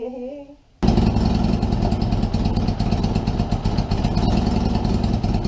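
Suzuki GS550's air-cooled inline four-cylinder engine running steadily. It starts abruptly about a second in.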